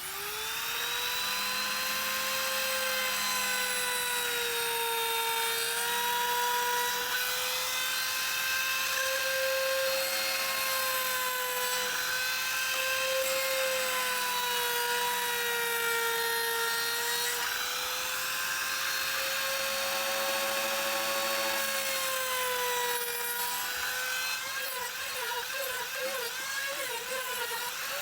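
High-speed electric power tool motor spinning up and then running with a steady high whine. Its pitch sags and recovers as it is loaded against the wood, then wavers rapidly near the end as it cuts.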